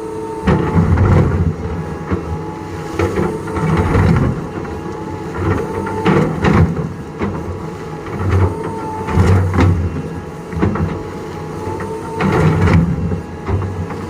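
Doosan DX225LCA excavator's diesel engine working, surging under hydraulic load every two to three seconds, with clanks and a faint whine that rises and falls with each surge.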